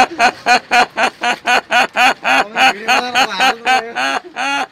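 A man imitating a duck with his voice: a fast, even run of quacks, about four a second, with the last few drawn out longer near the end.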